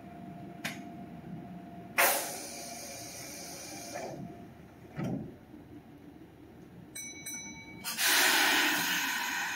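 Red Meitetsu commuter train standing at the platform, letting off compressed air: a sudden loud hiss about two seconds in, a low thump about five seconds in, a brief electronic tone around seven seconds, then a longer, louder air hiss near the end that slowly fades.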